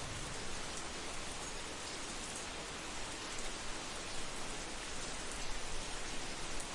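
Steady rain from a thunderstorm falling, an even hiss with faint ticks of single drops and no thunder.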